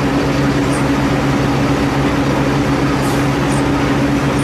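A steady mechanical drone with a low, even hum, and faint high ticks about once a second.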